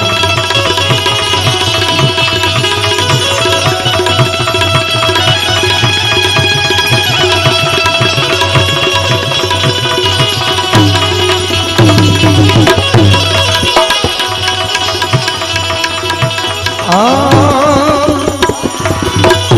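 Instrumental interlude of Indian folk devotional music: tabla playing a quick, dense rhythm under a sustained melody. A wavering, vibrato melody line comes in near the end.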